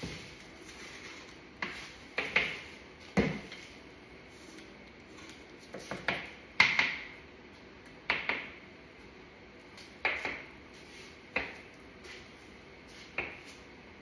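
Irregular sharp clinks and knocks, a dozen or more, each with a short ring: hard household items such as dishes, cups or utensils being handled and set down.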